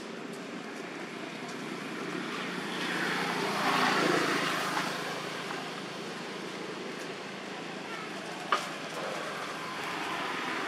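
A road vehicle passing by, its noise swelling to a peak about four seconds in and then fading over a steady low hum. A single sharp click comes about eight and a half seconds in.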